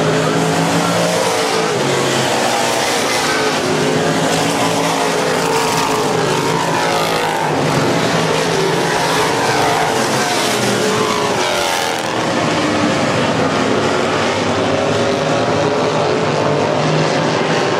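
A field of dirt-track stock cars racing, several engines running hard at once, their pitches rising and falling over one another as the cars lap the track.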